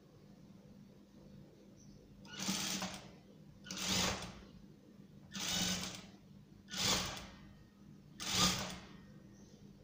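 Industrial sewing machine stitching in five short spurts of about half a second each, stopping between them as the fabric is guided under the foot. A faint low hum carries on between the spurts.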